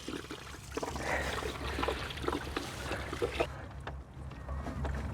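Water draining out of a tractor radiator through a disconnected hose, trickling and splashing steadily, with a few small clicks along the way.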